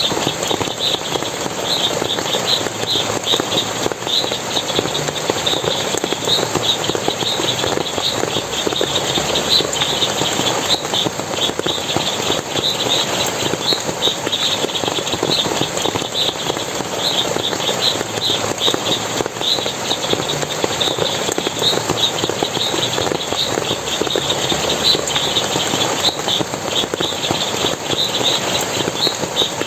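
Forest water splashing and running steadily, with continuous rapid, high chirping over it.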